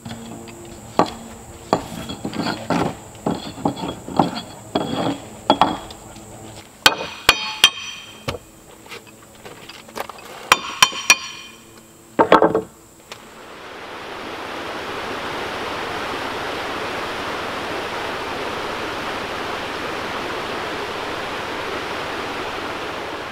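Hand tool scraping a bark-covered log in quick repeated strokes, then sharp metallic clinks in two short clusters and a single thump. About halfway through, a steady rush of a mountain stream running over rocks takes over.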